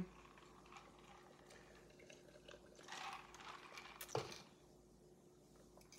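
Near silence: room tone with a faint steady hum, a soft brief noise about three seconds in, and one small click of a fork against a glass bowl about four seconds in.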